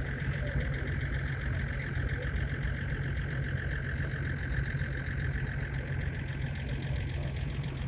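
Mitsubishi L200 pickup's engine running steadily while driving slowly off-road, heard from inside the cab as a low rumble with a steady whine above it that sinks a little in pitch near the end.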